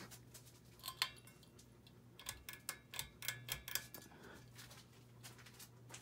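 Hunter Low Profile II ceiling fan running with a steady low motor hum. A sharp click comes about a second in, and a quick run of about ten sharp clicks follows between two and four seconds in.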